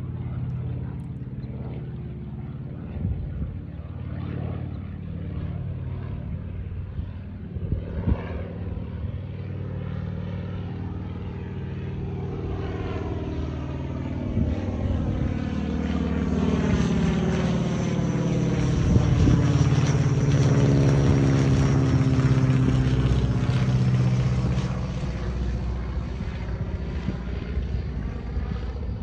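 Boeing Stearman biplane's radial engine and propeller droning steadily as it flies past overhead. The sound grows louder to a peak about two-thirds of the way through, then eases off slightly as the plane moves away.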